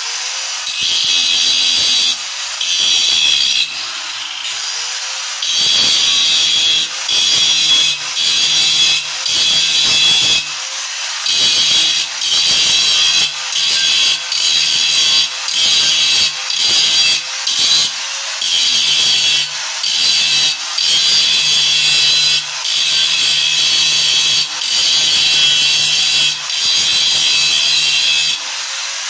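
Handheld power tool running steadily while worked over a round sign panel. The cutting noise swells and eases with each pass, about one stroke a second.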